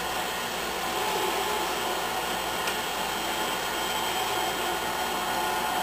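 Stand mixer's motor running steadily, driving a food grinder attachment as an onion is pushed through it.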